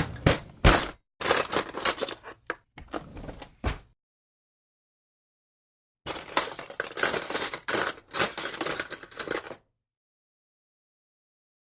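Metal cutlery clinking and rattling as it is handled and shifted about, in two bursts of jangling with a clean break of about two seconds between them.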